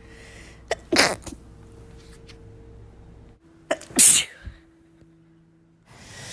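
A woman sneezing twice, about three seconds apart: each a quick catch of breath followed by a sharp sneeze. The uploader puts them down to spring allergies.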